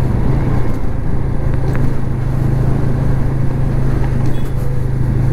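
Motorcycle engine running at a steady cruise, a constant low drone with the rushing noise of the ride behind it.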